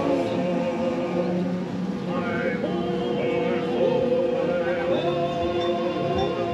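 The ride's background music: held notes with voices singing, at a steady level.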